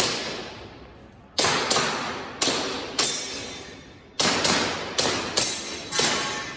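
Airsoft gas pistol firing an irregular string of about nine shots, some in quick pairs, each sharp crack trailing off over most of a second.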